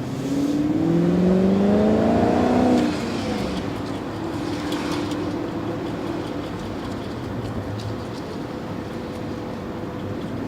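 BMW V8 with a hole in its exhaust accelerating: the exhaust note rises in pitch and gets louder for about two seconds, drops off sharply about three seconds in, then settles into a steady cruise.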